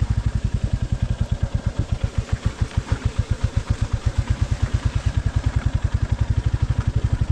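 Royal Enfield motorcycle engine running at low revs while riding slowly, a steady, even pulsing beat from the exhaust.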